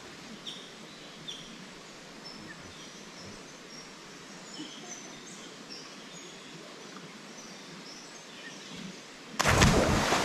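Outdoor creek ambience with a steady background hiss and scattered short bird chirps, then about nine seconds in a sudden loud splash into the water that fades away over a couple of seconds.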